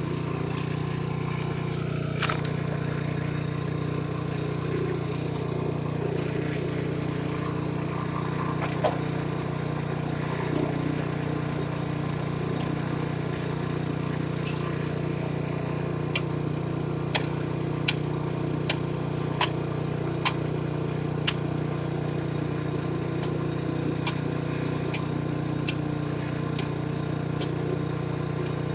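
Snowblower engine running steadily. Sharp knocks cut through it, a few scattered at first, then a regular run of about one and a quarter a second in the second half.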